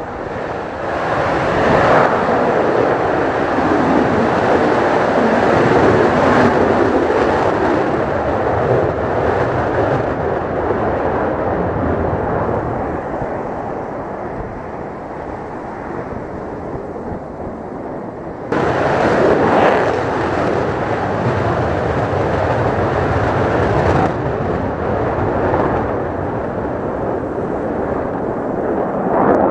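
Jet noise from a Mitsubishi F-2 fighter's single F110 turbofan engine. It swells over the first two seconds, rises sharply again about eighteen seconds in, and eases off a few seconds later.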